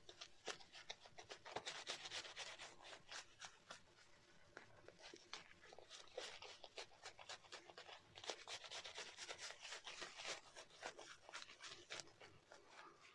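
Synthetic Tuxedo-knot shaving brush working soap lather: a quiet, continuous run of rapid scratchy, wet rubbing strokes as the brush bristles swirl the lather.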